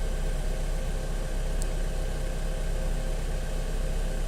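Steady hum of a parked aircraft's machinery running, a low drone with a few fixed tones held at an even level.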